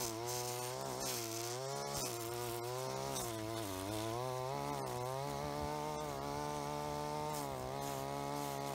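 String trimmer (strimmer) running as its nylon line cuts grass around a wooden fence post, its pitch dipping and rising with the load, with a few faint sharp ticks as the line strikes the post.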